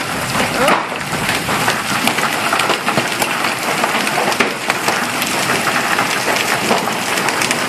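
Heavy hail falling: a dense, continuous clatter of hailstones striking the ground and roofs, with many sharp individual cracks from larger stones.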